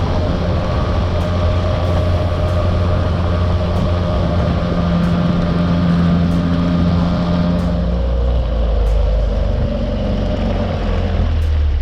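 Mariner 3.3 two-stroke outboard motor running at full throttle to clear out the carburettor, a steady drone with rushing water and wind noise. About eight seconds in the revs drop to a lower pitch as the throttle comes back.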